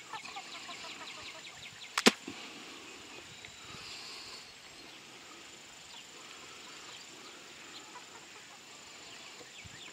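A flock of free-ranging egg-layer and game cross chickens clucking quietly as they forage. There is one sharp click about two seconds in.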